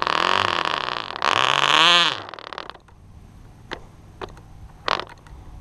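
Cox RR1 .049 rear-rotary glow engine buzzing in two short bursts during a cold-start attempt, catching briefly and stopping about two seconds in while it is still clearing its after-run oil. A few faint clicks follow.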